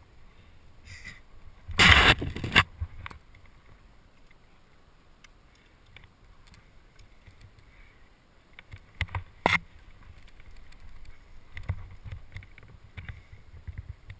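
A rock climber's movement sounds picked up close by a helmet-mounted camera: a loud brushing scrape about two seconds in, then soft rustling against the rock and a few sharp clicks of climbing gear a little past the middle.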